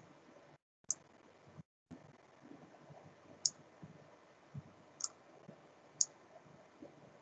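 Computer mouse clicking: four sharp single clicks a second or more apart, over faint room noise.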